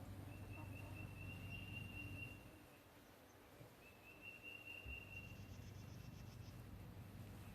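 Quiet outdoor ambience with an insect, such as a cricket, trilling at one steady high pitch in spells of about two seconds, over a faint low hum that fades out about two seconds in.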